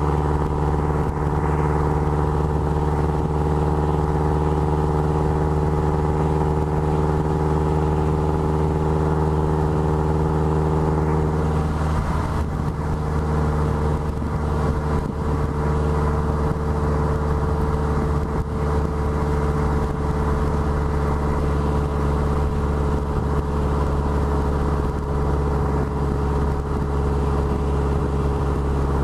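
Exhaust note of a 2013 Subaru WRX's turbocharged flat-four, heard at the tailpipes through equal-length headers and a Maddad turboback exhaust, running at a steady engine speed. About twelve seconds in the pitch shifts, then holds steady while easing slightly downward.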